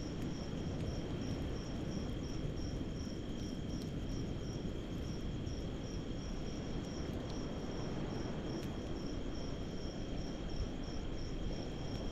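Insects calling: one steady high trill and another high chirp pulsing a few times a second, over a steady low rush of background noise.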